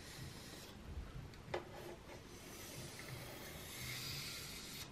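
Olfa utility knife blade scoring pink extruded polystyrene insulation foam along a metal ruler: a faint scraping rub, with a single click about a second and a half in.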